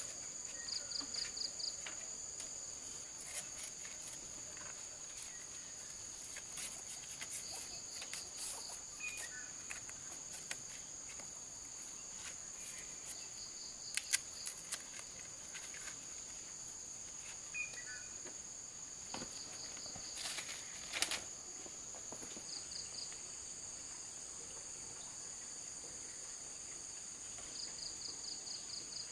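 Forest insects: a steady high drone, with short rapid trills of a cricket-like insect repeating every few seconds. Scattered clicks and knocks of bamboo poles being handled at the fence, the loudest about halfway through and again about two-thirds through.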